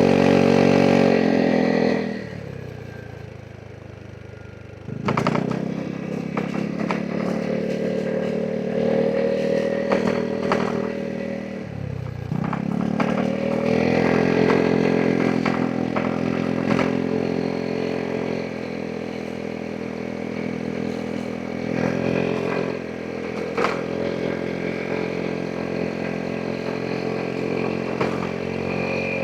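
Vespa GTS 300 SuperSport scooter's single-cylinder engine under way. The throttle closes about two seconds in and the scooter coasts more quietly, then the throttle opens again with a sudden rise at about five seconds. There is another brief lift-off and pull-away near twelve seconds, and short knocks are scattered through.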